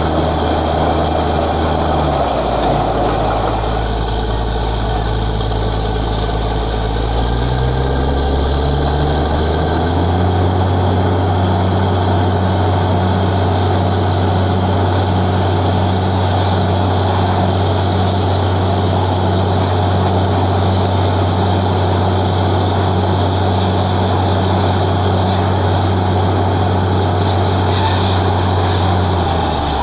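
Borewell drilling rig's engine running hard and steadily. It drops in speed about two seconds in, climbs back up over a few seconds, holds, then drops again at the very end.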